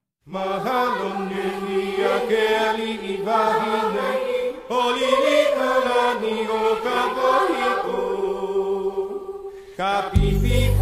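Chanted singing in Hawaiian, voices only at first. About ten seconds in, a loud low bass comes in under the voices.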